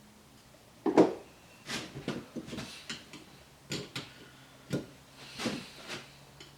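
Hand tools knocking, clattering and scraping against the metal body and parts of a brake master cylinder as it is worked apart, with a sharp knock about a second in and a scraping stretch near the end.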